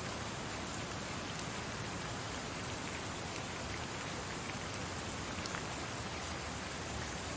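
Steady rain-like hiss with a few faint ticks, a recorded ambience playing from the website.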